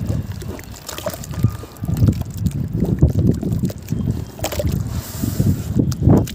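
Hands squeezing and stirring thick wet cement slurry in a bucket: irregular wet squelching and sloshing, coming in repeated low surges.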